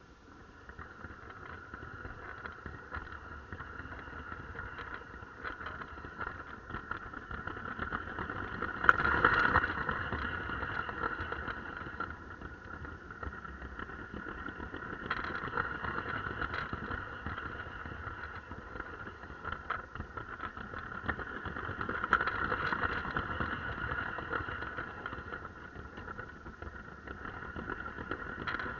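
Small electric motor of a Lego train whining steadily, with wheels clicking over plastic track, heard from a camera riding on the train. The whine swells and fades as it runs, with a louder knock about nine seconds in.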